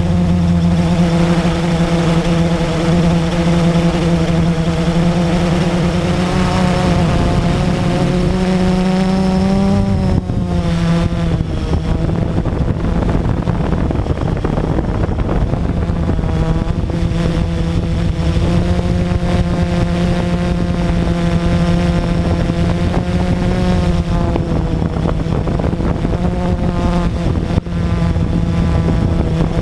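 Blade 350QX quadcopter's four brushless electric motors and propellers whining steadily, heard from the onboard camera, loud and close. The pitch dips and recovers about ten seconds in and wavers several times later as the throttle changes.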